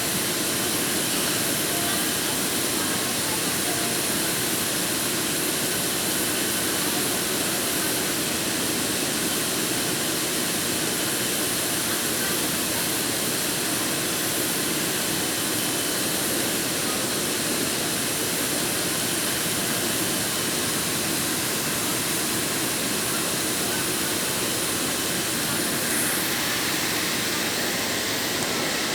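Steady hiss and drone of automatic GTAW (TIG) welding equipment running, unchanging in level.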